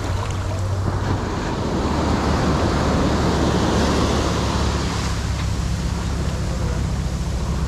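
Ocean surf breaking and washing up the sand, swelling louder about halfway through, with wind rumbling on the microphone.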